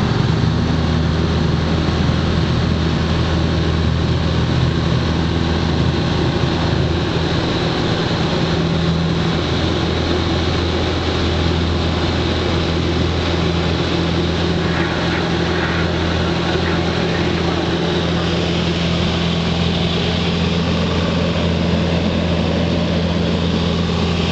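Piper Cherokee 140's four-cylinder piston engine and propeller running steadily, heard inside the cabin as a loud, even drone, with a brief change in tone about ten seconds in.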